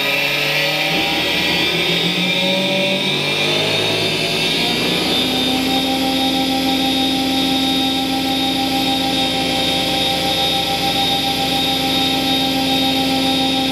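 Charnwood W824P midi lathe's motor and headstock spindle speeding up to full speed: the whine rises in pitch for about five seconds, then holds steady at about 3,850 rpm. The lathe has a newly fitted replacement control module and is holding its revs.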